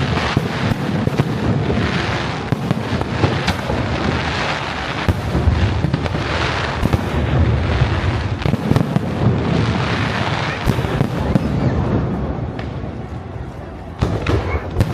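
Fireworks display: a dense, continuous run of bangs and crackling that eases off a little near the end, then a fresh sharp bang just before it ends.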